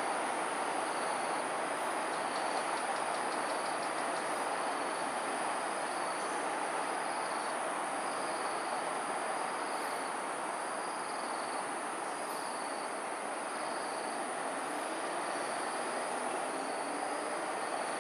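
Steady, even wash of traffic noise with no rise or fall, under a constant high-pitched drone and a faint short chirp repeating about once a second.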